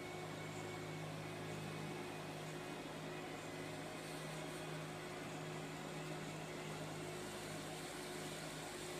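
Steady low hum with an even hiss over it, unchanging throughout: background room noise, with no distinct event.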